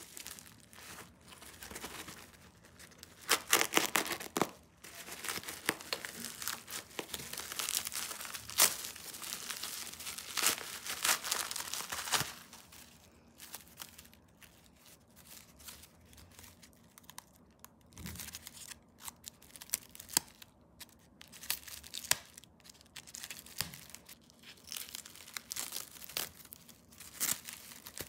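Plastic bubble mailer and honeycomb kraft paper wrap being cut and torn open by hand, with crinkling and tearing of paper and tape. The loudest, busiest tearing comes in the first half, followed by quieter, scattered crinkles.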